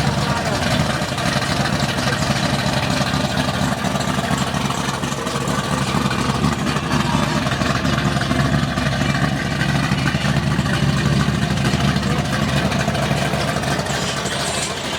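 A vehicle engine running steadily at idle, with a deep, even rumble.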